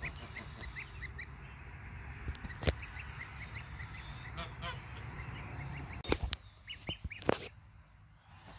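A gosling peeping: runs of short, high peeps, several a second, broken by a few sharp clicks.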